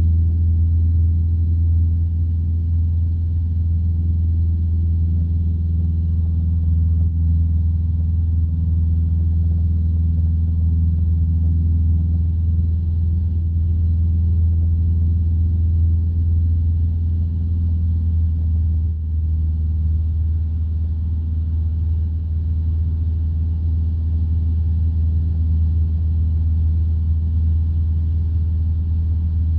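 Light aircraft's piston engine and propeller droning steadily in flight, a deep, even hum heard from inside the cockpit.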